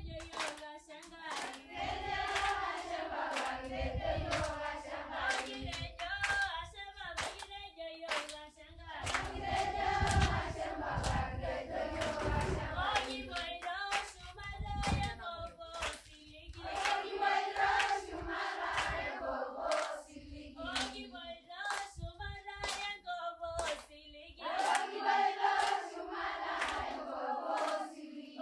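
A group of voices singing with steady rhythmic hand clapping.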